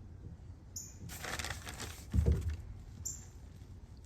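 Hands digging through loose potting soil in a potato bucket: a rustling scrape about a second in, followed by a dull thump just after two seconds.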